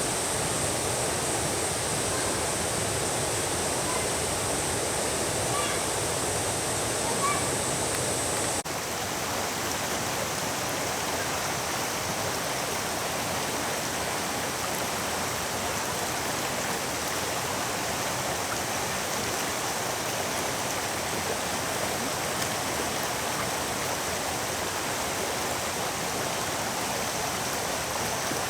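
Small waterfall and river rapids rushing steadily. About eight and a half seconds in the sound cuts to a slightly quieter stretch of the same rushing water.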